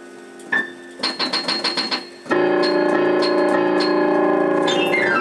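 Piano playing, picked up by a camera's built-in mono microphone: a single note, then a quick run of repeated notes, then a loud held chord, with a downward glissando near the end.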